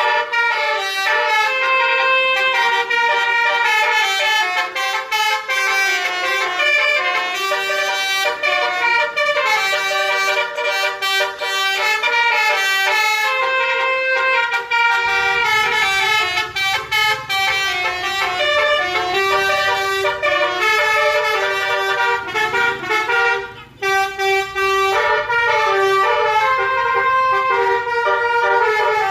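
Telolet basuri horn, the multi-trumpet musical air horn fitted to Indonesian trucks and buses, playing a song melody in quick stepped notes, with a short break near the end.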